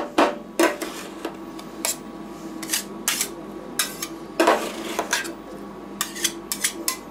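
Two steel spatulas chopping and scraping ice cream on the stainless steel cold plate of a rolled ice cream machine: scattered knocks and clicks of metal on metal, with a longer scrape about four and a half seconds in. The machine's steady hum runs underneath.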